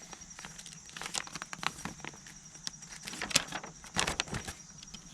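Paper rustling and crinkling in short, irregular strokes as a folded instruction sheet is handled and opened.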